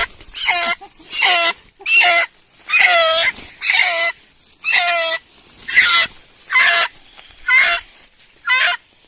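A free-range village chicken squawking loudly and repeatedly, about ten harsh calls roughly a second apart. These are the alarm squawks of a bird that has just been caught.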